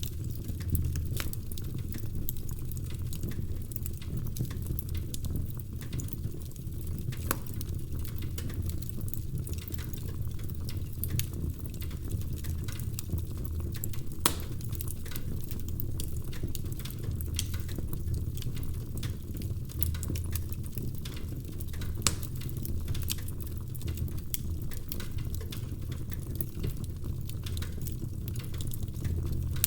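Wood fire crackling in a fireplace: irregular sharp pops and snaps from the burning logs over a steady low rumble, with a few louder snaps scattered through.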